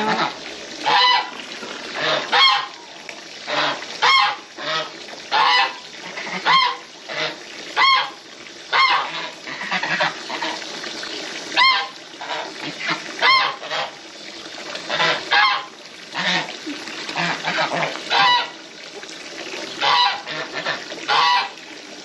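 Domestic geese honking over and over, short loud calls about one a second.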